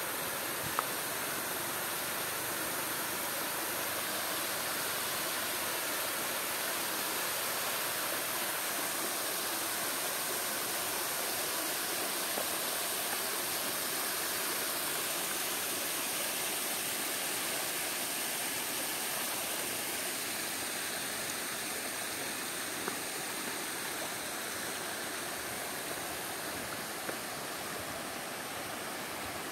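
Water spilling over a stone masonry step of a dam wall and splashing onto the rock below: a steady rushing flow that eases slightly near the end.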